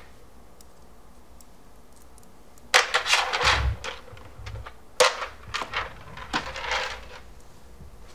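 Metal bolts and washers clinking as they are handled. There are two sharp clicks about three and five seconds in, each followed by light rattling.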